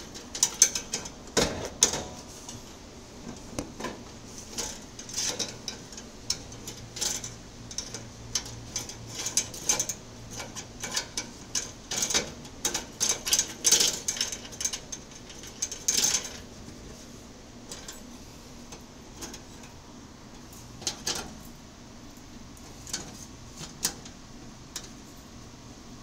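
Irregular metallic clicks, taps and scrapes of brass gas fittings and metal tubing being handled and fitted inside a gas shawarma machine. The clicking is busy over the first two-thirds, then thins to a few scattered clicks.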